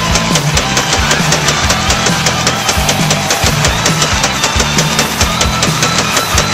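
Background music with a fast, steady drum-kit beat and bass, in a heavy rock style.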